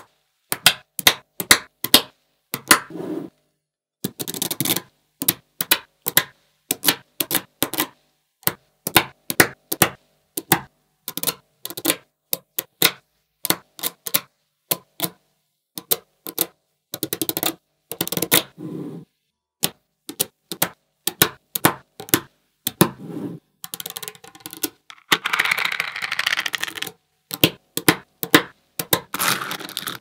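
Small magnetic balls clicking as they snap onto one another, one sharp click after another at an irregular pace. A few longer rattling stretches, the longest near the end, come as several balls clack together at once.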